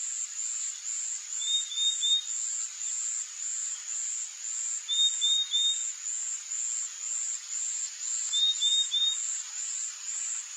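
A high, even insect chirp repeating about twice a second, with a short call of three quick notes recurring three times, about every three and a half seconds.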